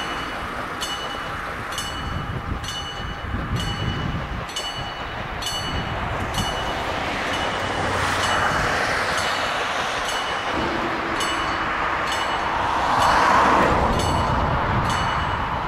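Small steam locomotive DSB F 441 approaching with a steady rushing noise that swells twice, while a level-crossing bell rings about once a second.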